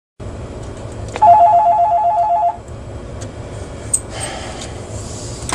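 A telephone ringing once: an electronic warble of two quickly alternating tones, about a second and a half long, over a steady low hum.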